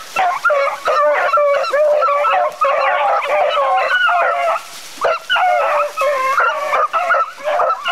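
A pack of beagles baying in chorus on the trail of a running swamp rabbit, several voices overlapping, with a brief lull a little past halfway.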